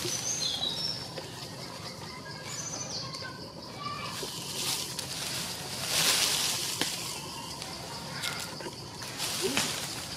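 Forest ambience: birds giving short chirps, over a steady high insect drone, with a few louder swells of hiss, the loudest about six seconds in.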